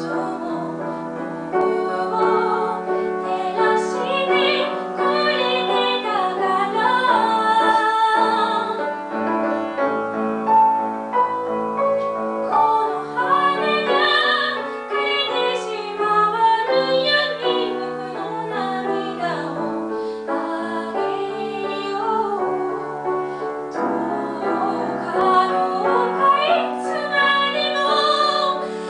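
A woman singing a slow song while accompanying herself on a grand piano, her held notes wavering with vibrato.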